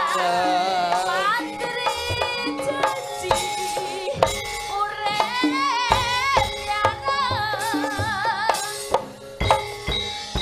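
Javanese gamelan music with kendang hand-drum strokes, accompanying a woman singing a wavering, ornamented melody through a microphone and PA.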